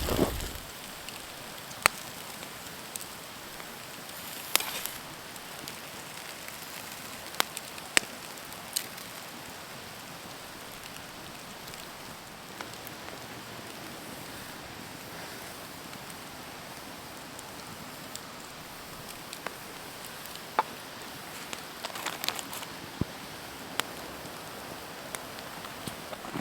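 Wood campfire crackling, with scattered sharp pops and small bursts of crackles over a steady hiss.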